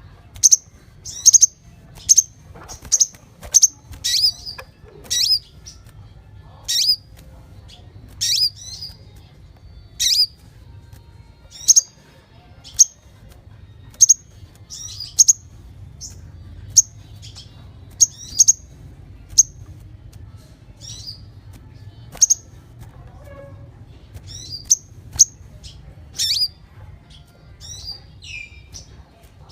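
A konin songbird calling: loud, sharp, high chirps, each a quick downward sweep, given singly or in quick pairs about once every second or so, over a faint low hum. This is a masteran track, the kind played to cage birds to make them answer.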